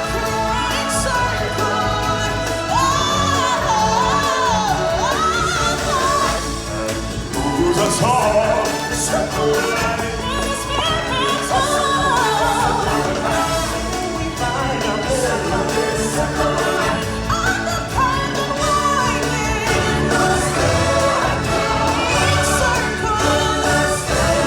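Live stage-show music: a choir singing over a full band, with a lead voice sliding up and down above it.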